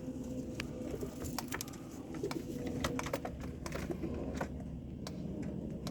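Domestic pigeons in a loft: soft pigeon sounds with many scattered sharp clicks and taps.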